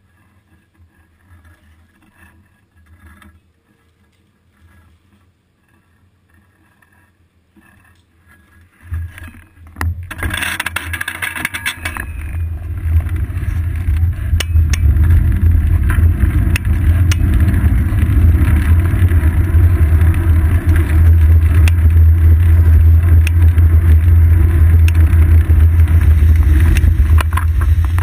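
Quiet at first. Then, about nine seconds in, a loud, steady rushing rumble of wind and road noise builds up on the seat-post-mounted GoPro as the bicycle gets moving, and keeps going.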